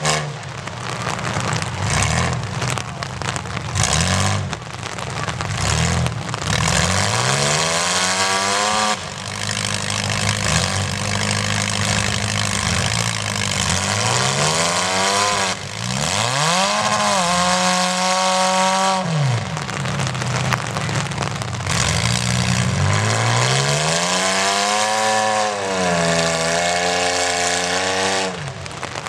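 Demolition derby cars' engines revving hard again and again, each rev climbing in pitch and falling away, some held for a couple of seconds, over the steady noise of the other cars' engines.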